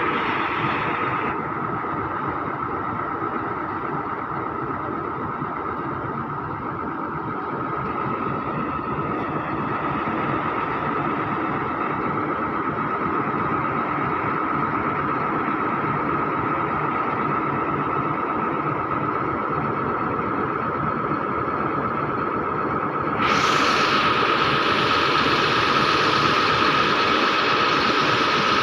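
Heavy truck engine idling steadily, with a constant whine over the running. About three-quarters of the way through, a louder hiss cuts in suddenly and stays.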